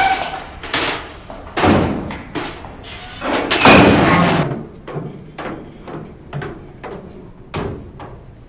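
Thuds and a slam at a metal locker, the loudest lasting about a second near the middle, then a run of quick light taps about three a second.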